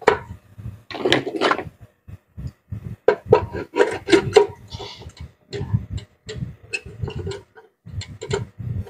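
Irregular clicks and knocks of small metal parts being handled inside an opened rice cooker as a magnetic thermostat is pushed into place from below, with a short scrape about five seconds in.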